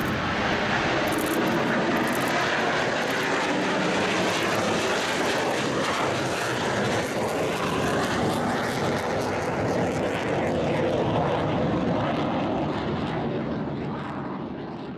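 Two F-5 Tiger II fighters, an F-5E and an F-5F, each with twin J85 turbojets, taking off together and climbing away: a loud, steady jet roar that begins to fade near the end.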